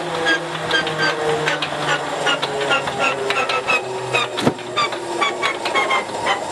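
Starter cranking the Stinson L-1's Lycoming R-680 nine-cylinder radial engine, the propeller turning slowly without the engine catching. A whine falls slowly in pitch under rapid mechanical ticking, with a single sharp knock about four and a half seconds in.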